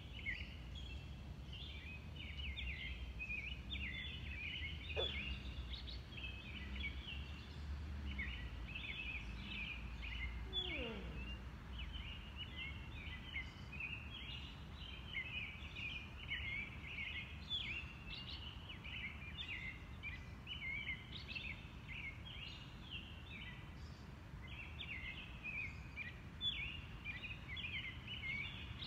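Birds singing, a steady run of quick, varied chirps and short phrases. A low rumble sits underneath for the first twelve seconds, with a faint falling tone around the eleventh second.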